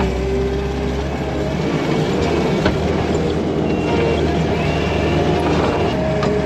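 Diesel engine of earth-moving farm equipment running steadily under load while dirt is pushed and spread, with a sharp click about two and a half seconds in.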